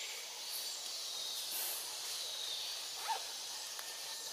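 Steady high-pitched drone of forest insects, with a single short chirp about three seconds in.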